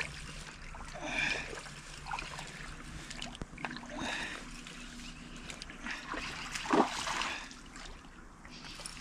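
Water splashing and trickling in irregular swells, with one sharper, louder splash about two-thirds of the way through.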